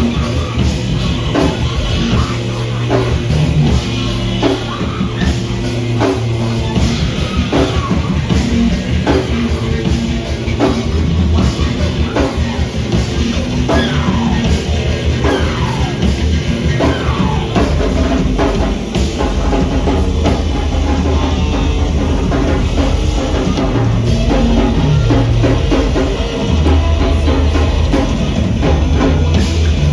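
A rock band playing loud, heavy music, with a drum kit hitting hard throughout and sliding pitched notes about halfway through.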